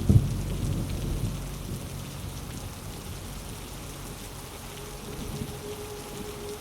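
Steady rain falling, with a clap of thunder right at the start whose low rumble fades over the next second or two. Near the end, a low, steady ambient drone note comes in under the rain.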